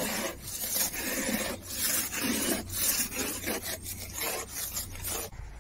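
A run of about ten rough scraping strokes in irregular succession, stopping suddenly near the end.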